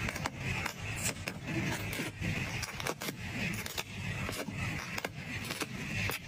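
Close-up crafting handling sounds: a quick run of small clicks and taps mixed with repeated scraping and rubbing of materials.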